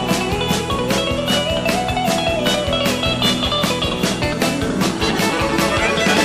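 A country band plays live: twangy electric guitar in the chicken-picking (hybrid-picking) style over a steady drum beat and bass.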